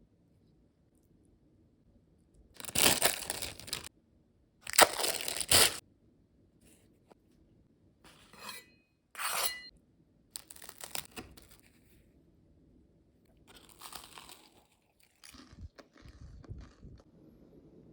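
Toasted sandwich bread crunching: two loud crunches of about a second each, a few seconds in, then several shorter, softer crunches.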